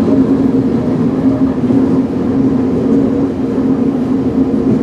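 Tokyo Metro new 05 series electric train heard from inside the passenger car while running, a steady hum holding one pitch over even wheel-on-rail running noise.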